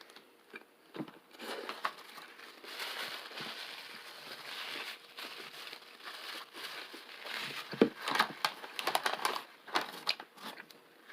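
Paper food wrapper crinkling and rustling as it is handled, with sharper, louder crackles in the last few seconds.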